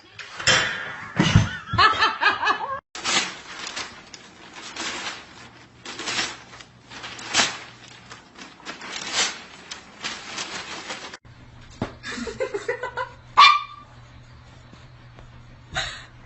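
A person laughing in irregular bursts.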